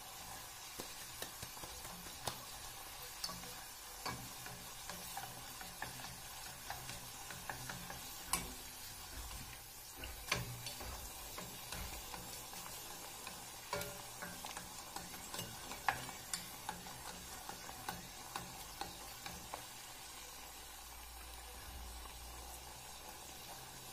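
Hot oil sizzling steadily around a rose-shaped khvorost dough pastry deep-frying in a small stainless-steel saucepan, with scattered light clicks and taps of a wooden spatula and stick against the pan as the pastry is turned.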